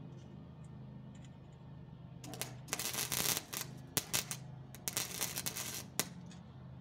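Wire-feed welder arc crackling and sputtering in short bursts, from about two seconds in until about six seconds, with a few sharp pops. A steady low hum runs underneath.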